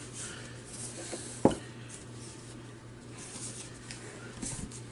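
Books being handled and slid over a cloth-covered surface: soft rustling, with one sharp knock about one and a half seconds in as a book is set down.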